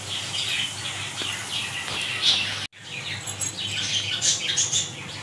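Small birds chirping in short scattered calls over the faint hiss of onions and green chillies frying in oil in a steel karahi. The sound drops out for an instant about two and a half seconds in.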